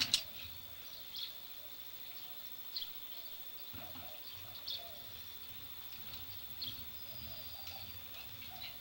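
Quiet outdoor background: a steady high insect drone with a few short chirps and clicks, and a faint low rumble from about four seconds in.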